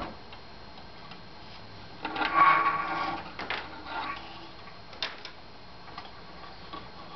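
Hand work on an aluminium-extrusion 3D printer frame: small clicks and taps of parts being handled, with a louder rubbing noise about two seconds in that lasts over a second, and a sharp click near five seconds.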